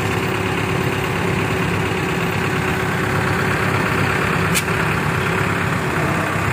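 Heavy construction-machine diesel engine idling steadily, with one short click about four and a half seconds in.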